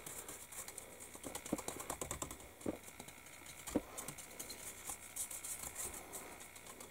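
Tamiya anti-static brush sweeping over a plastic scale model: faint, quick, irregular ticking and light scratching of the bristles on the plastic, with two louder knocks around the middle.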